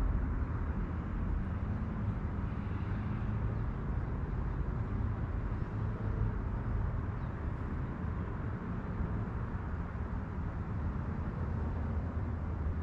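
Steady low outdoor background rumble with no siren tone heard.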